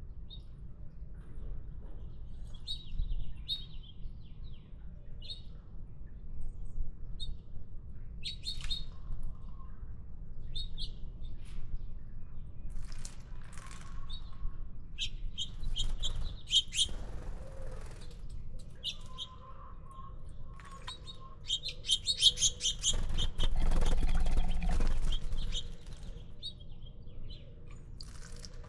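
Small songbirds at a birdbath giving short, scattered chirps, with a louder noisy burst lasting about two seconds near the end.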